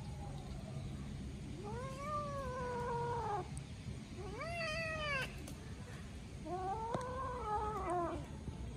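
Kitten meowing three times, each meow long and arching in pitch, the middle one shorter and higher.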